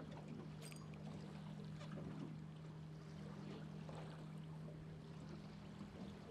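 Boat motor humming steadily at a low level, with faint water sounds around the hull and a single light click about two-thirds of a second in.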